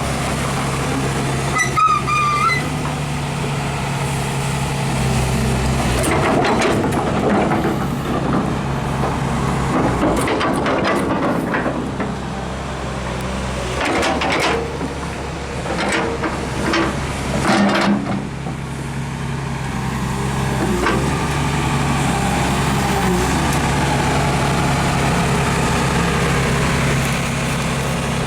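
Large Hyundai crawler excavator's diesel engine running steadily under a test run, with a brief high squeal about two seconds in and bouts of metallic clanks and knocks from the working machine in the middle stretch.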